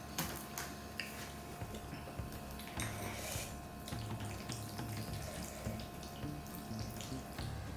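Metal tongs and chopsticks stirring and lifting noodles in thick black bean sauce: wet, sticky mixing sounds with repeated clicks of metal against the dish.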